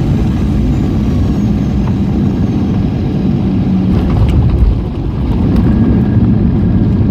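Jet airliner on its landing rollout, heard inside the cabin beside the wing: a loud, steady rumble of engine and runway with a low hum, swelling a little about four seconds in.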